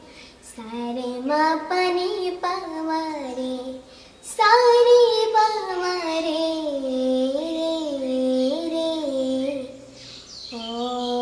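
A young girl singing a song unaccompanied, in long melodic phrases with short pauses for breath, the last note held steady near the end.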